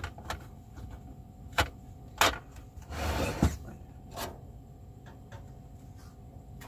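Kitchen clatter: cutlery rattled in a drawer as a utensil is pulled out, then a frying-pan lid handled and lifted off, giving a string of sharp knocks and clinks.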